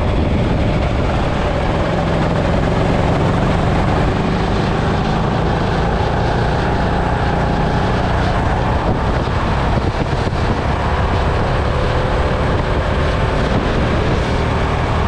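Onboard sound of a Sodi hire go-kart's engine running steadily under throttle, with heavy wind rush on the microphone.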